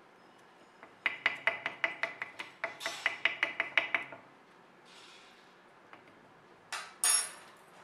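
Metal teaspoon tapping rapidly with a light ringing clink, about five taps a second for some three seconds, as it packs powdery filling into a hole in a whole coconut. Two sharper clinks of the spoon follow near the end.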